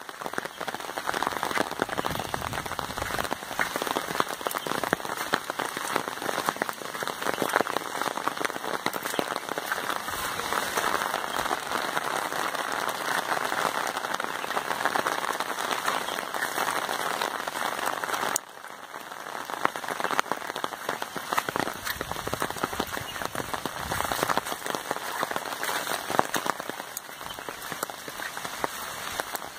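Steady heavy rain falling, a dense patter of drops. It drops off suddenly about two-thirds of the way through, then builds back up.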